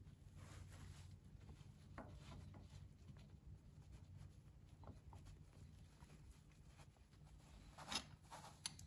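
Near silence with faint rustling and a few light clicks of hands handling a metal heater mounting bracket against an ATV engine block, the most distinct click a little before the end.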